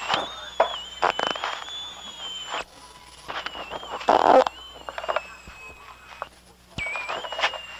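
Cassette-tape recording of farts playing back: several short, irregular blasts, the loudest about four seconds in, over a steady high-pitched whine and tape hiss.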